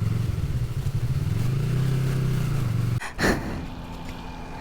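Motorcycle engine running while riding, its pitch swelling up and easing back down about two seconds in. About three seconds in the sound changes abruptly to a quieter, steadier engine note, with a sharp knock just after the change.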